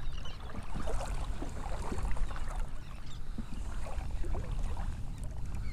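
Wind buffeting the microphone with a constant low rumble, over light, irregular splashing of shallow water while a hooked fish is played in.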